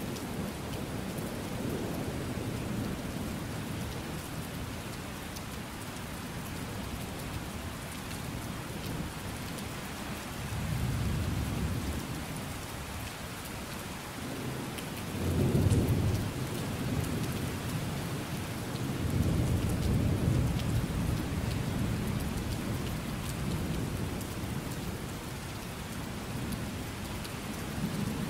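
Steady rain with rolling thunder. Low rumbles swell about ten seconds in, a louder one comes at around fifteen seconds, and a longer rumble follows around twenty seconds.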